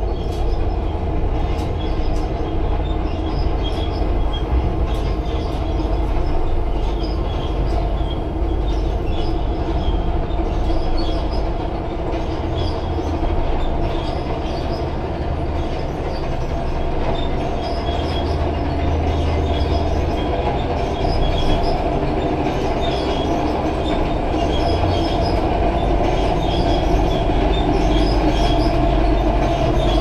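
Steady machinery noise inside the cab of a Liebherr LHM 550 mobile harbour crane as it lowers a container and then raises the spreader: a constant low drone with a steadier hum above it.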